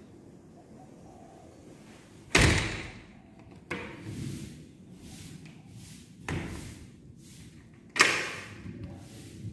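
Four sharp bangs, the first (about two seconds in) and the last (about eight seconds in) much louder than the two between, each dying away quickly.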